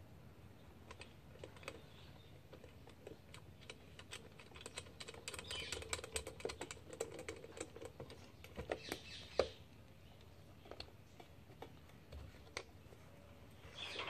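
Scattered light clicks and rattles of plastic parts and wires being handled as a ceiling fan's switch and light housing is fitted back together, busiest in the middle, with one sharper click about nine and a half seconds in.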